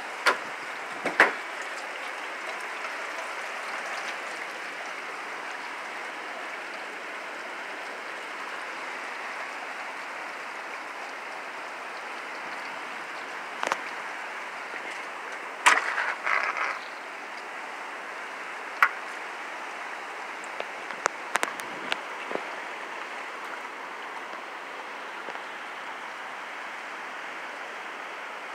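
Steady rush of hurricane wind and rain, with a few sharp clicks and knocks scattered through it, loudest a little past a second in and around sixteen seconds in.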